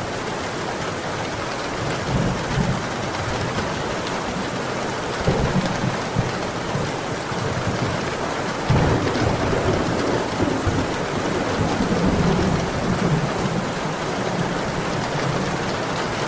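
Heavy rain falling steadily, with low thunder rumbling through it several times, longest and loudest around the middle of the stretch.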